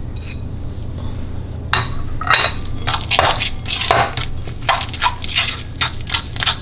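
Metal fork stirring a thick cream cheese mixture in a glass bowl, with quick repeated scrapes and clinks against the glass beginning about two seconds in.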